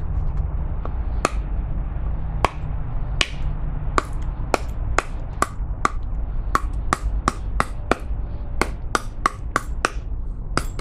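Fixed-blade knife (Odenwolf W Sow Catcher) chopping into a piece of wood: a string of sharp strikes, spaced out for the first few seconds, then quicker at about two to three a second.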